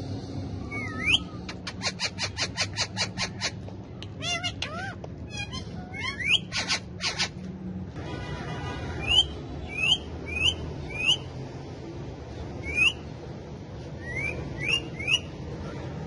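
Ringneck parakeets calling: a fast run of harsh, repeated squawks in the first few seconds and a few longer pitch-bending calls, then from about the middle a series of short, sharp chirps in quick groups.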